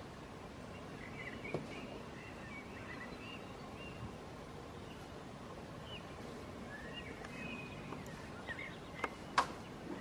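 Outdoor background hiss with small wild birds chirping faintly and briefly here and there. A few sharp clicks come through, the loudest about nine seconds in.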